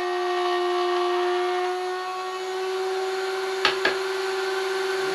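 Router mounted under a router table running at a steady high pitch while it cuts a trough in a wooden strip in shallow passes. Two sharp knocks come close together about three and a half seconds in.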